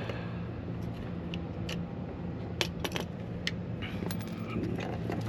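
Scattered light metallic clicks and taps of a hand tool working a T20 Torx fastener, about half a dozen in a few seconds, over a steady low hum.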